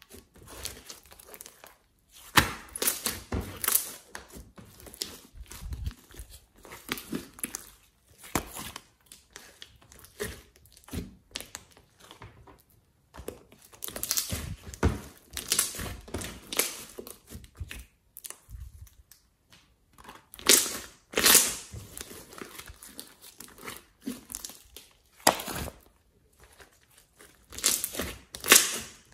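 Hands squeezing, folding and kneading a large lump of glossy slime, giving sticky, wet-sounding bursts that come irregularly with short pauses between them.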